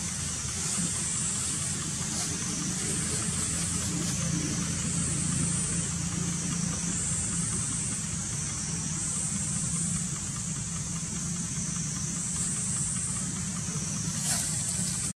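Steady outdoor background noise: a low hum under a high buzz that swells and fades every second or two.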